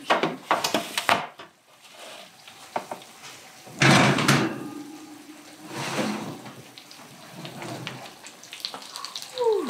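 Kitchen clatter as roasting dishes are handled: a ceramic baking dish set down on the countertop with a few quick knocks. About four seconds in, a loud clatter comes from the open oven as a metal roasting pan is pulled off the rack, followed by smaller knocks.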